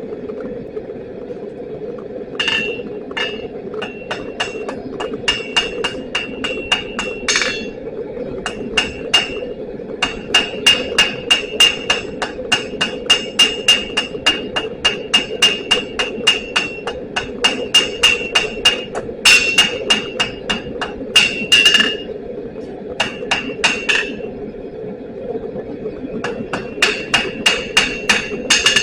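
Blacksmith's hammer striking steel on an anvil in runs of quick blows, about three a second, with a few short pauses; the anvil rings between strikes. A steady hum runs underneath.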